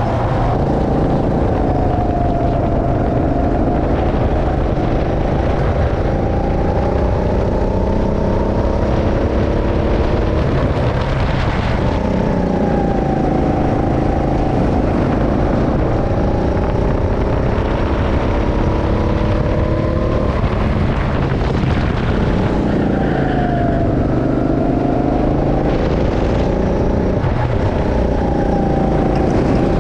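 Go-kart engine heard from the driver's seat, running hard, its pitch climbing steadily along the straights and falling sharply several times as the kart slows for corners.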